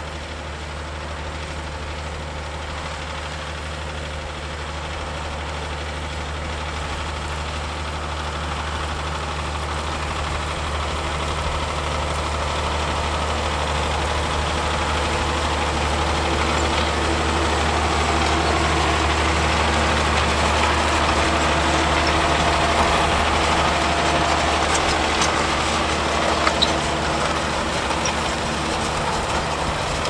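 John Deere 6150R tractor's six-cylinder diesel engine running steadily under load while pulling a reversible plough through the soil, growing louder as the tractor comes closer. A couple of sharp clicks near the end.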